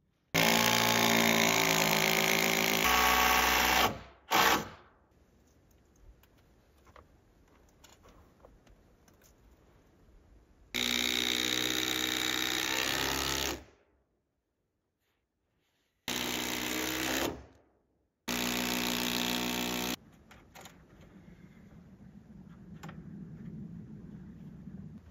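Cordless drill running in five separate bursts, driving fasteners into wooden blocks and boards on top of a log wall; the longest burst lasts about three and a half seconds and one is only a blip.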